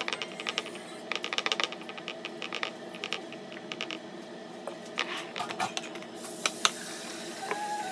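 Silicone spatula tapping and scraping against a glass baking dish while spreading thick, freshly cooked corn and coconut pudding, in several short runs of quick clicks. A steady low hum runs underneath.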